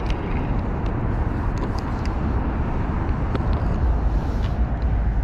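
Steady rush of road traffic from the adjacent roadway, with a few small clicks from handling the spinning rod, reel and line.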